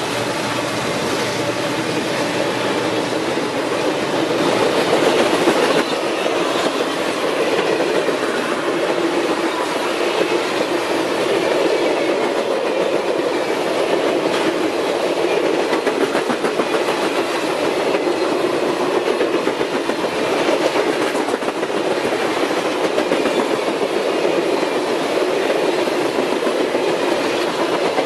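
A long train of stainless-steel passenger and baggage cars rolling past close by, giving a steady, even noise of wheels on the rails.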